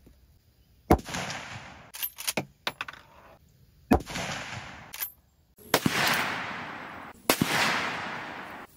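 Shots from a .30-30 Winchester lever-action rifle (Glenfield Model 30A, a Marlin 336) with a 20-inch barrel: one sharp report about a second in and another about four seconds in, with a quick run of metallic clicks between them as the lever is cycled to chamber the next round. Two more reports follow in the second half, each trailing off in a long, rolling echo.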